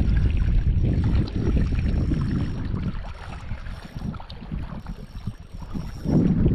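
Wind buffeting the microphone, a low rumble that eases off about halfway through and picks up again near the end.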